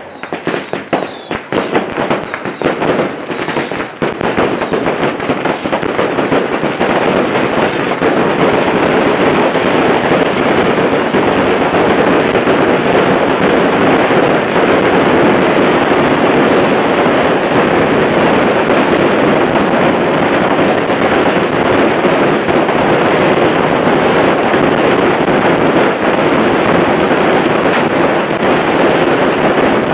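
Fireworks and firecrackers going off: separate sharp bangs at first, merging about six seconds in into a dense, unbroken crackle.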